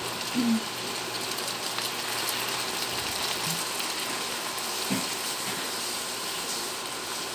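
Adobo-cut pork belly steadily sizzling and crackling in a frying pan as chopsticks turn the pieces. The braising water has cooked off and the pork is frying in its own rendered fat, starting to caramelize.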